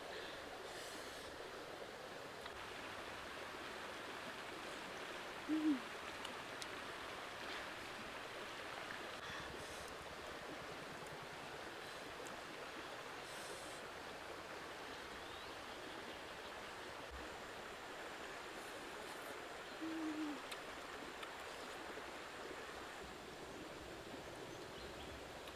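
Two short low hooting calls from a bird, about fifteen seconds apart, each falling slightly in pitch, over a steady rushing of flowing water.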